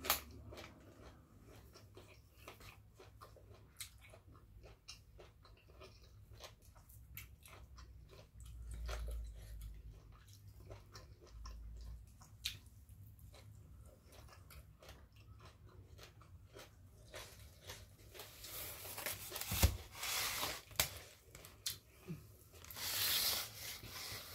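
Close-miked chewing, with many small wet clicks, of someone eating blanched squid, sticky rice and papaya salad. There are louder noisy bursts near the end.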